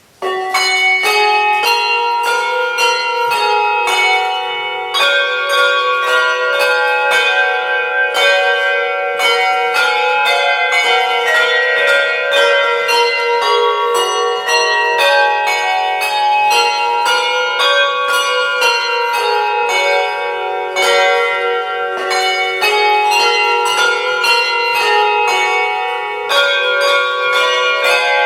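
Handbells playing a carol tune, with notes struck one after another and ringing on so that they overlap. The tune starts suddenly out of quiet just after the beginning.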